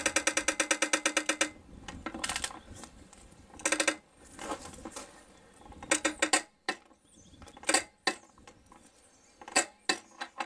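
Ratcheting torque wrench clicking rapidly for about a second and a half as it tightens the propeller nut of an outboard motor, followed by several short separate bursts of clicks as the nut is brought up to torque.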